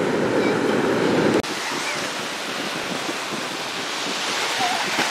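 Steady noise of waves washing on a beach, with wind on the microphone. About a second and a half in, a lower wind rumble cuts off suddenly, leaving the even wash of the surf.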